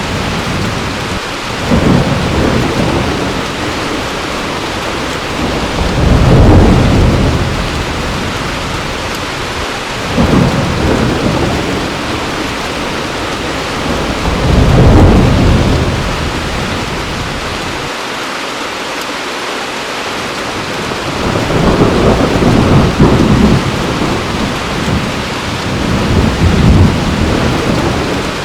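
Heavy rain falling steadily, with low rolls of thunder swelling and fading several times, every few seconds.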